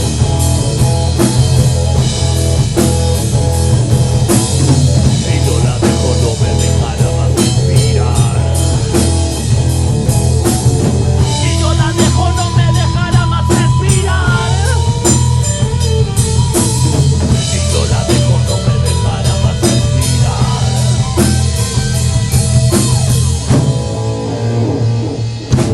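Rock band playing live in rehearsal, caught as unmixed room sound: drum kit hits over a heavy bass and electric guitar.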